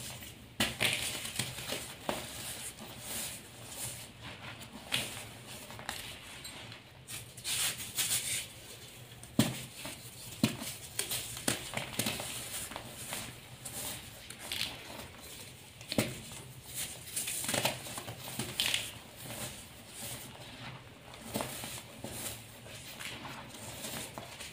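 Gloved hands squeezing, scooping and crumbling dyed gym chalk powder and soft chalk chunks: an irregular run of soft powdery crunches, with a few sharper crunches about ten and sixteen seconds in.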